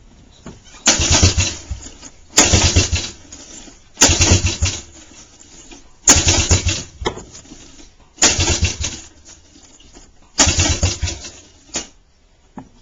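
1985 Suzuki LT125 quad's single-cylinder four-stroke engine being pull-started six times, each pull cranking it over briefly with a fast chugging that dies away without catching: the engine won't start.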